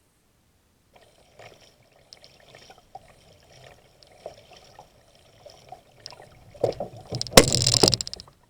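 Water splashing and sloshing at a kayak, faint at first, then a much louder splash lasting about a second and a half near the end.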